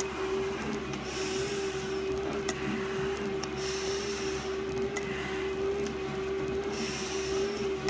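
A firefighter breathes hard through a full-face mask, with a hissing breath about every three seconds. Under the breaths runs a steady machine hum with one held tone.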